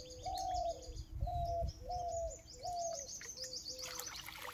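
A bird calling a run of about seven short, low calls, roughly one a second, the last few a little lower in pitch, with faint high chirping from other small birds.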